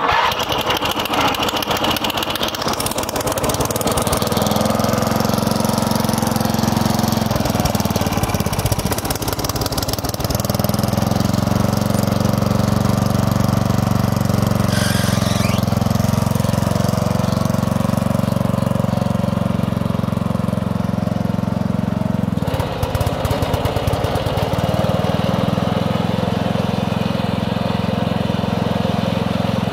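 Murray 12 hp riding lawn mower engine running steadily as the tractor drives along. Its steady note breaks up briefly about three-quarters of the way through, then settles again.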